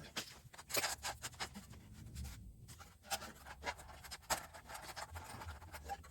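Irregular light clicks and scraping of metal on metal as a replacement dryer heating coil is stretched and worked into its sheet-metal housing by hand.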